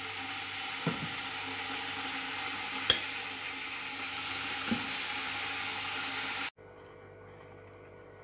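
A metal spoon stirring a thick almond butter and cacao mixture in a glass bowl: a couple of soft knocks and one sharp, ringing clink of the spoon against the glass, over a steady hiss that cuts off suddenly about six and a half seconds in.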